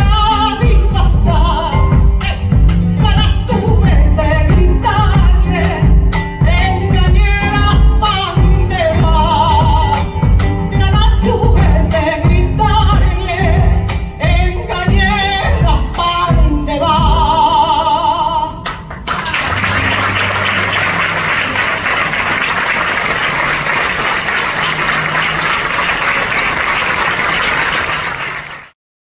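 A woman singing a folk song live to the beat of a bombo legüero drum and an acoustic guitar. The song ends about two-thirds of the way through and is followed by audience applause, which cuts off suddenly near the end.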